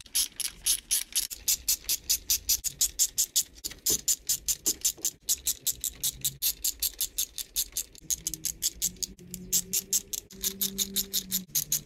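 Hand ratchet clicking rapidly and evenly, about six clicks a second with a few brief pauses, as its pawl slips on each back-swing while running new cylinder head bolts down with an E14 socket.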